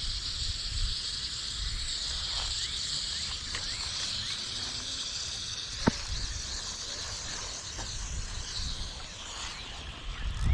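Outdoor pondside ambience: wind buffeting the microphone and a steady high hiss, with one sharp click about six seconds in.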